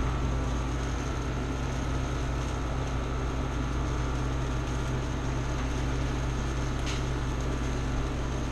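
A fan running steadily with a low hum and a faint high whine, with a light click about seven seconds in.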